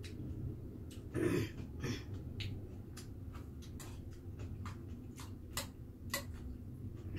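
Metal spoon clinking and scraping in a stainless steel bowl of rice soaked in water: irregular light clicks, one or two a second. A louder eating sound comes about a second in.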